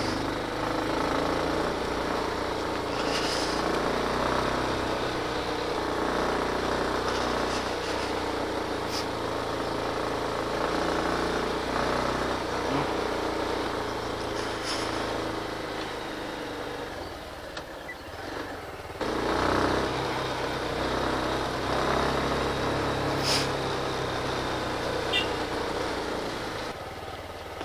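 Motorcycle running steadily along the road. It drops off somewhat about two-thirds of the way through, then picks up again.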